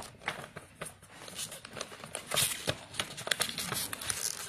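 Printed paper label crinkling and rustling as it is pressed and folded by hand over the top of a cardboard fireworks cake, a run of short crackles that is busiest in the second half.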